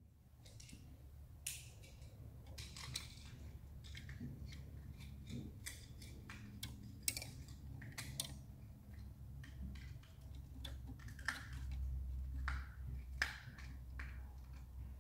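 Handling noise from feeding a thin antenna wire through a small plastic housing: scattered light clicks, taps and scrapes over a low steady rumble that grows louder near the end.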